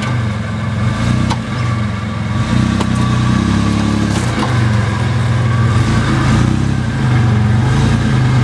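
Toyota 4Runner engine running at low revs under load while crawling over rocks, getting louder about two and a half seconds in and again near the end as the throttle is fed in. A few sharp clicks in the first few seconds.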